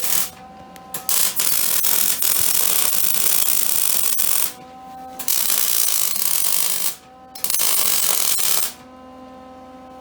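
Welding arc crackling and hissing in three runs, the first about three seconds long and two shorter ones after, as beads are laid on a steel ATV frame.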